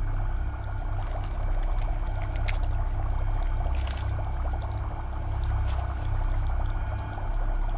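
Water boiling in a saucepan, a steady bubbling. A paper tea-bag wrapper crinkles sharply twice, about two and a half and four seconds in, as it is opened.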